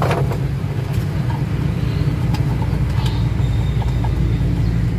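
Steady low rumble of a motor vehicle engine running, with a few light clicks of small parts being handled.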